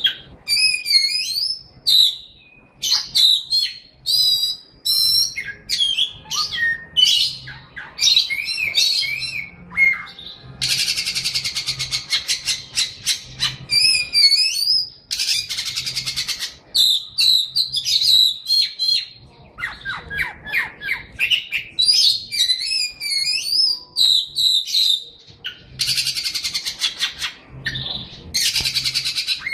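A songbird singing a long, varied song of quick whistled notes and pitch sweeps, broken several times by buzzy rattling trills lasting a few seconds each.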